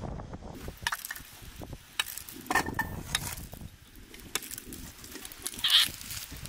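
Small twig fire crackling under a frying pan, with diced onions sizzling in oil: scattered sharp crackles, and a brief louder sound about five and a half seconds in.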